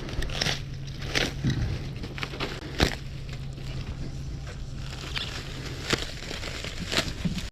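Steel grocery shelving clanking as it is handled, five or so sharp knocks a second or two apart with the loudest near the middle, over a steady low hum.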